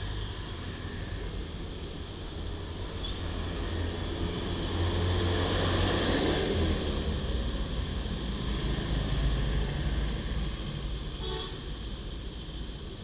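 Roadside traffic: a vehicle passes close by, growing to its loudest about six seconds in, over a steady low rumble. A long thin high whistle-like tone rides over it until the pass peaks.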